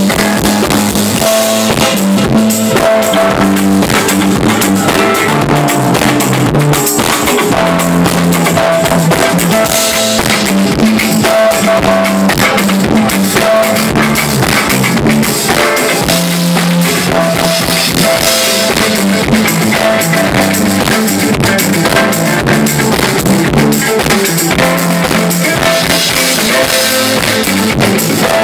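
Live rock band playing loud, with drum kit, bass and guitar, heard close to the drums. Steady kick and cymbal hits drive under a bass line and a short melodic figure that repeats every second or so.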